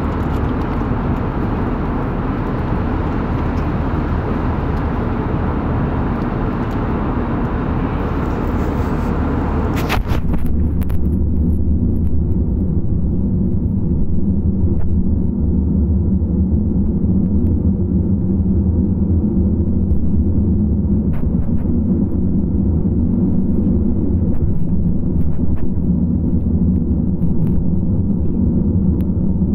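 Steady cabin noise inside an Airbus A320neo airliner: a constant rush of air with a low engine drone beneath. About ten seconds in, the sound turns suddenly duller and deeper, the hiss falling away and the low hum coming forward.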